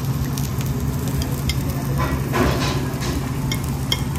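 Meat sizzling on a Korean barbecue table grill, over a steady low hum, with scattered light clicks.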